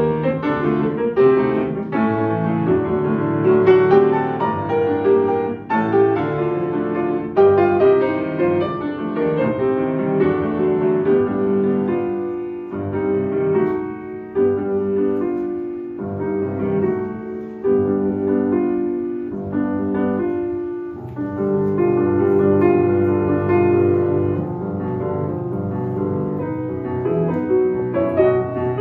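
Solo grand piano playing classical music, unbroken, with louder chordal passages and a few softer stretches.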